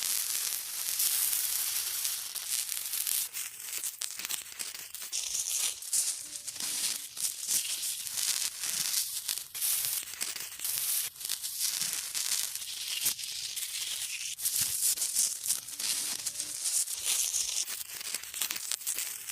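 Acid fizzing and sizzling: a high, continuous hiss packed with tiny crackling pops that swells and eases.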